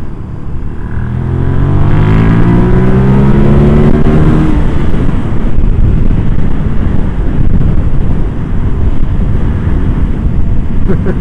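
Suzuki SV650S V-twin engine revving up under hard acceleration, its note rising steadily for a few seconds. It then gives way to a loud, steady rush of wind over the helmet at speed.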